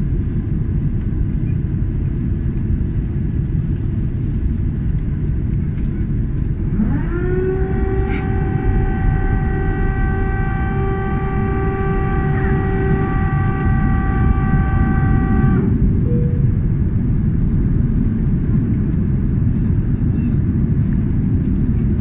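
Cabin noise of an Airbus A330 airliner on approach: the steady, deep roar of the engines and airflow. About seven seconds in, a whine rises quickly to a steady pitch, holds for about nine seconds, and then cuts off.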